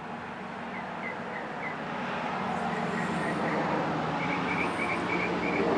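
A vehicle running nearby, its noise slowly growing louder as it approaches, with a steady low hum. Short, repeated high chirps from a small bird sound over it.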